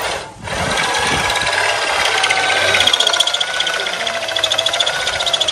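An electric power tool running under load, starting about half a second in, with a fast rattle and a whine that wavers in pitch as the load changes.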